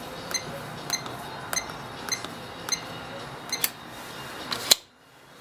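Electronic safe lock keypad (Sargent & Greenleaf Titan direct drive) beeping once for each key press as a combination is entered, about every 0.6 s, seven or eight beeps in all. A single loud, sharp click follows near the end.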